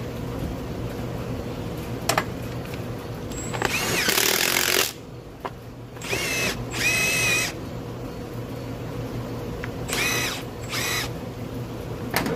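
A cordless impact wrench runs in five short bursts, the first and longest about four seconds in. It is driving bolts through a rubber-tired wheel to pull the wheel's bearing down into its seat.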